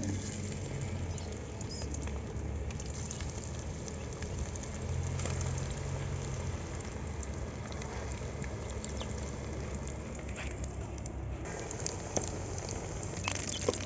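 Chickpea and potato kebab patties sizzling as they deep-fry in hot ghee in an aluminium pot over a wood fire, a steady hiss with occasional sharp pops.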